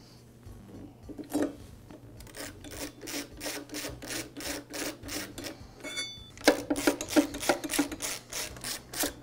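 Long screwdriver turning cylinder screws into a Husqvarna backpack blower's engine: a quick, even run of short scraping strokes, about three or four a second, growing louder in the last few seconds. A brief metallic ring sounds about six seconds in.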